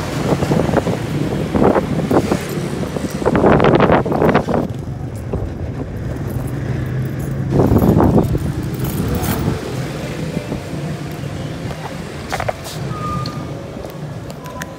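A motor vehicle engine running steadily, with several louder rushes of noise in the first half, easing off over the last few seconds.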